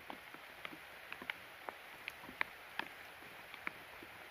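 Rain falling in a soft steady hiss, with single drops tapping close by at an uneven pace, about three a second.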